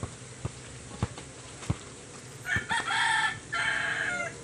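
A rooster crows, starting about two and a half seconds in: one long call in two parts, the loudest sound here. Before it, a basketball is dribbled on a dirt court, about four thuds roughly half a second apart.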